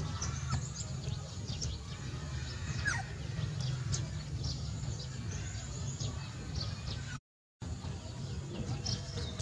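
Birds chirping in short scattered calls over a steady low rumble, with a brief total dropout about seven seconds in.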